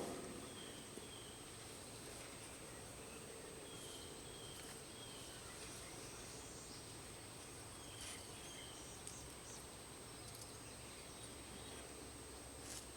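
Faint outdoor ambience: a bird gives short, falling chirps in groups of two or three every few seconds, over a steady high-pitched tone.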